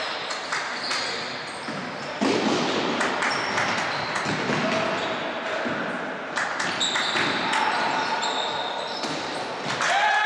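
Athletic shoes squeaking and footsteps slapping on a sports-hall floor as players run and cut, with short sharp squeals, most of them in the second half, and players' voices calling out, all echoing in the large hall.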